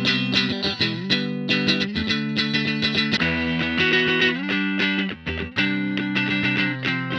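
Fender Mexican-made Telecaster electric guitar played through an amp in a tone test: picked notes and ringing chords, with a brief dip about five seconds in.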